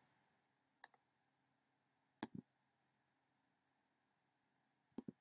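Near silence broken by a few soft clicks of a computer mouse: a faint one about a second in, a pair about two seconds in, and another pair near the end.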